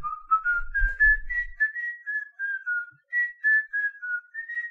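A person whistling a tune: short clear notes at about three a second, climbing over the first second or so and then stepping up and down.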